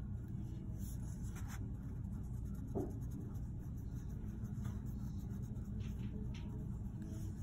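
White colored pencil scratching on paper in short, scattered strokes, over a steady low hum.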